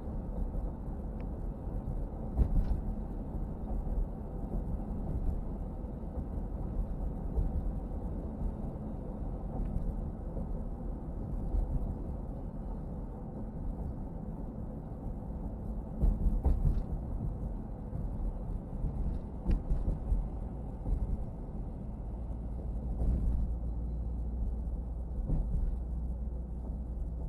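Steady low rumble of a car driving, road and engine noise heard from inside the moving car, with a few brief louder thumps about two seconds in, around the middle and near the end.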